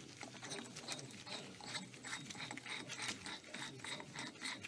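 Faint, irregular metal clicks and rattles of a large socket and extension being handled on the axle end of a front wheel hub.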